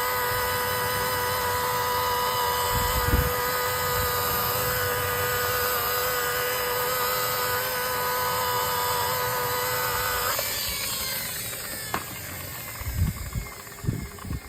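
Electric polishing machine running steadily with a constant whine as it buffs a plastic car headlight with polish. It is switched off about ten seconds in and winds down, followed by a few short knocks near the end.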